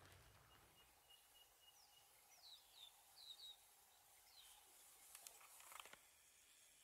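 Near silence: faint outdoor ambience with a few short, falling bird chirps in the middle and a few faint clicks near the end.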